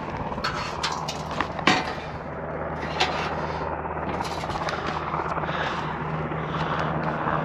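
A few sharp knocks and clicks in the first couple of seconds and another about three seconds in, over a steady low engine drone that continues to the end.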